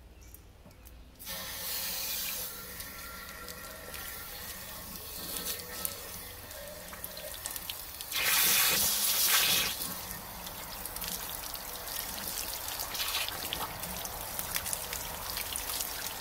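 Water rushing from a garden-hose flushing wand inside an RV water heater tank, with the flush water splashing out of the drain opening. It starts about a second in and swells louder for a couple of seconds just past the middle.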